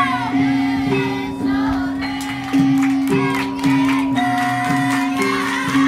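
Javanese gamelan-style dance music with a singing voice: a steady pattern of held notes, a new note struck about once a second.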